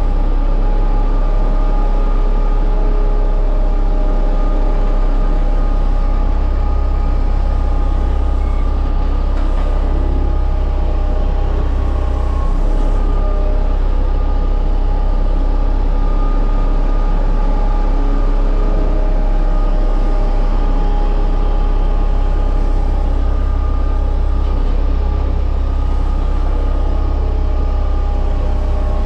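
Small drum roller compactor running steadily as it rolls over the base being compacted: a steady engine rumble with a few held tones above it, the deep rumble swelling and easing a few times.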